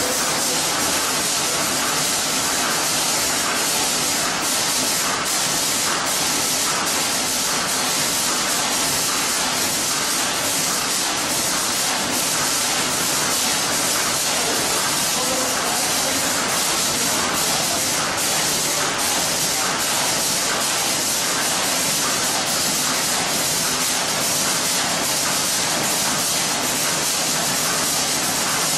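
Steady hiss and hum of running wire-processing machinery, with faint, irregular ticks.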